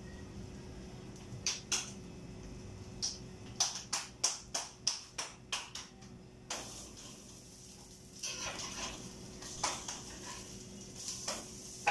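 Hands patting and slapping pupusa dough into shape: a run of sharp slaps, two or three a second, through the first half, then a few seconds of soft hissing with scattered clicks.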